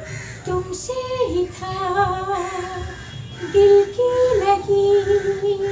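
A woman singing unaccompanied, a slow Hindi song melody with long held notes that step up and down in pitch.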